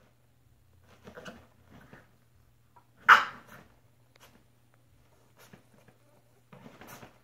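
A French bulldog giving one loud, short bark about three seconds in, with quieter whimpers and short vocal sounds before and after it.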